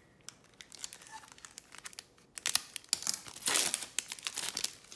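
Foil wrapper of a Topps Star Wars trading-card pack crinkling and tearing as it is pulled from the box and ripped open, loudest from about halfway through.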